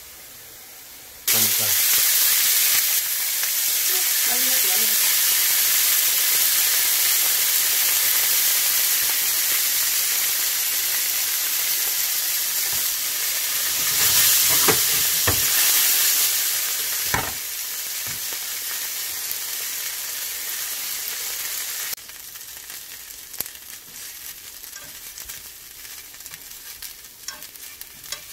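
Potato mochi frying in oil in a nonstick pan, sizzling. The sizzle comes in loud about a second in, with a few light knocks near the middle. It eases off in two steps later on, ending as a fainter sizzle with small crackles.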